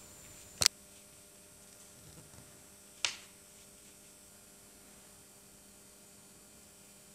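Two sharp clicks about two and a half seconds apart, the second trailing off briefly, over a faint steady electrical hum.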